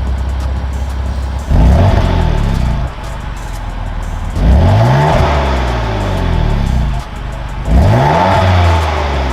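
BMW M4's S55 twin-turbo inline-six, fitted with Eventuri carbon intakes and titanium chargepipes, idling and then free-revved three times. Each rev climbs quickly and drops back to idle, roughly three seconds apart.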